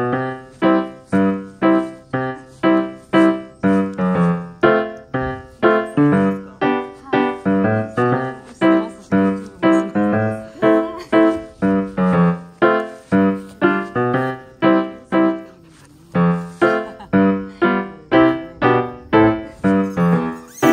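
Background piano music: evenly paced notes, about two a second, with a short pause a little past the middle before the melody carries on.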